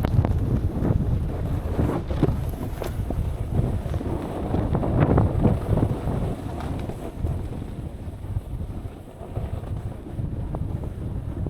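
Wind buffeting a DJI action camera's built-in microphone during a snowboard run, a heavy low rumble, with snowboard edges scraping and chattering on snow through the first several seconds before it eases.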